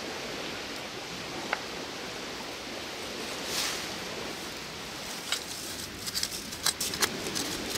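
Steady faint outdoor hiss, with a shovel blade working into loose soil in the first half. In the second half a small hand tool scrapes soil away from the knotweed roots, making a run of short clicks and scratches.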